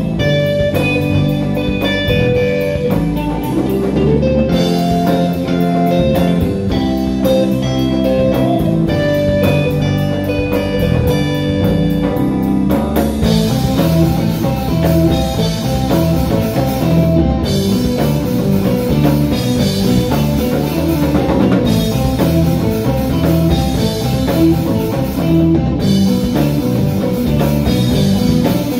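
A live band playing: electric guitars, bass guitar and drum kit through a stage PA. The sound grows fuller and brighter about halfway through.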